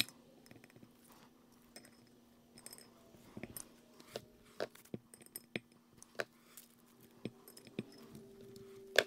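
Light, scattered clicks and clinks of small metal parts and tools being handled on a workbench, with a sharper click near the end, over a faint steady low hum.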